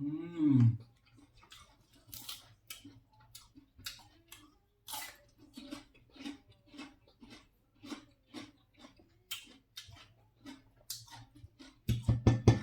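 A person chewing Alaskan king crab meat with the mouth close to the microphone: wet mouth clicks and smacks at about two chews a second. A short hum of the voice at the start and a voiced sound near the end.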